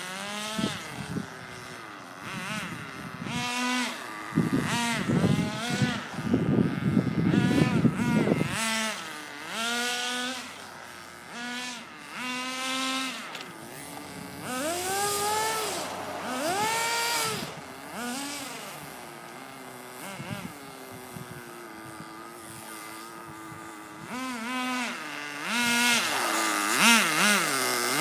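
Small nitro RC car engine being throttled up and down again and again, its high buzzing pitch climbing and dropping in short bursts, with a rougher, noisier stretch about four to eight seconds in.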